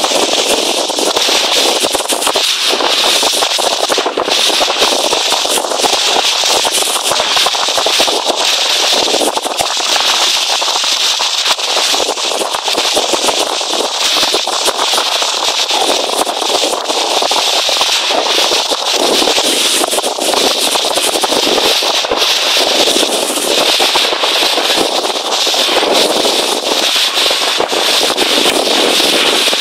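Water rushing and spraying along the hull of an RS800 skiff under sail: a loud, steady hiss full of small crackling splashes.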